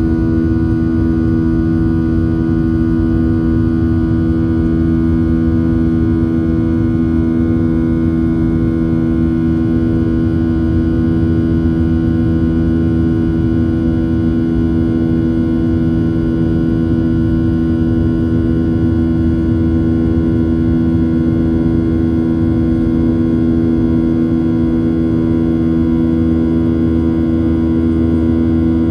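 Cabin noise of a Boeing 737-800 climbing out after takeoff, heard from a window seat just ahead of the wing: the CFM56-7B turbofan's steady low rush at climb thrust, with two strong, steady humming tones over it.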